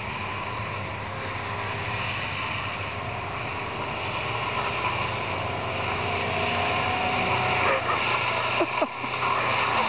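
1989 Ford Laser Ghia, with wooden boards under its rear wheels, approaching: its engine running under a steady rushing noise, growing louder as it nears. A couple of short squeals sound near the end.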